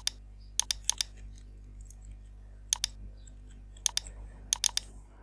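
Computer keyboard keys and mouse buttons clicking while a password is entered: about six quick pairs of sharp clicks at irregular spacing, over a faint steady low hum.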